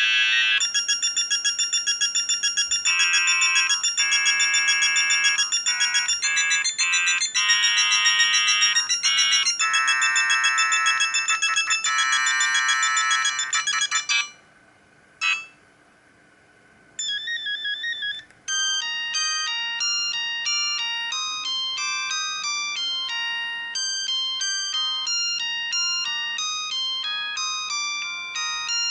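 Siemens CL50 mobile phone ringtones playing one after another: a fast, busy electronic melody of many stepped notes, which stops about halfway. After a short pause with one brief blip and a short phrase, a new melody of clearly stepped notes begins.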